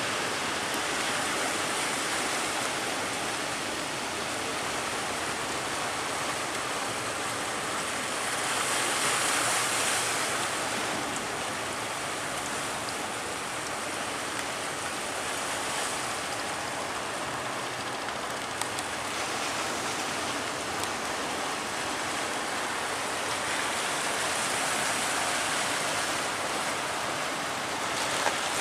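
Ocean surf washing and breaking in a steady roar, with louder swells a few times.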